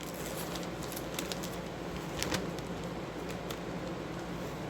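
Scattered light clicks and taps of a buffing pad and its parts being handled and put away, over a steady low hum.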